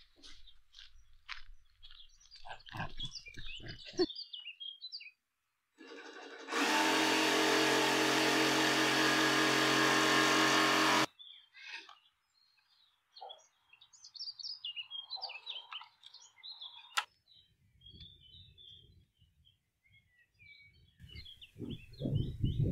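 A power tool runs steadily for about four seconds in the middle and cuts off abruptly, against birds chirping.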